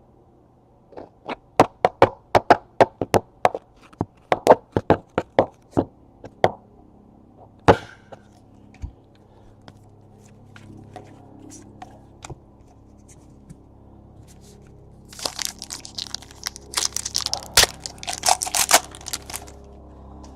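Trading cards snapped one after another in a quick run of sharp clicks, about three a second, then a card pack's wrapper torn and crinkled for several seconds near the end.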